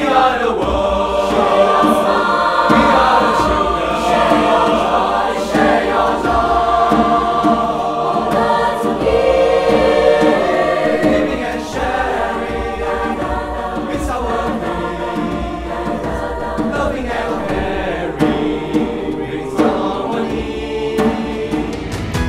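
A choir singing, many voices holding sustained chords over a steady low accompaniment.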